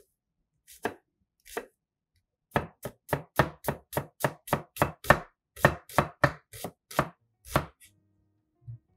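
Chef's knife chopping an onion on a plastic cutting board: two slow cuts, then a quick, even run of chops about three a second that stops shortly before the end.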